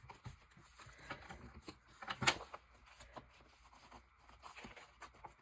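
Awl being pushed through a stack of folded paper into a magazine beneath: faint paper rustling and small clicks, with one sharper click a little over two seconds in.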